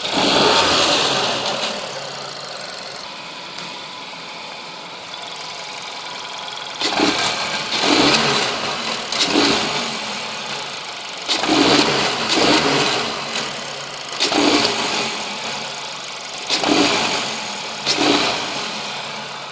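Cold VW Golf 6 1.2 TSI four-cylinder turbo petrol engine idling and being revved in short blips, mostly in pairs, one at the start and the rest in the second half. The owner finds its noises odd.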